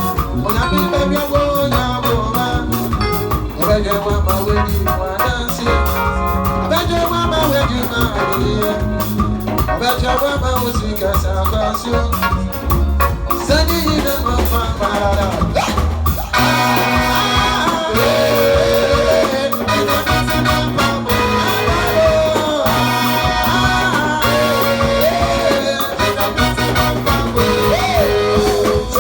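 Loud music with a steady beat and singing, played through a sound system; the arrangement changes about 16 seconds in.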